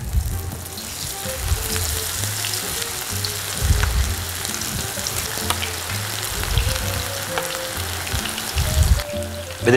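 Tempura-battered vegetable strips (zucchini, carrot and potato) deep-frying in a pan of hot oil, with a steady, busy sizzle and crackle of bubbling oil.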